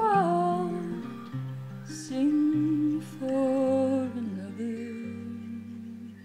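Background music: a gentle acoustic-guitar song with a held, gliding melody line, fading out near the end.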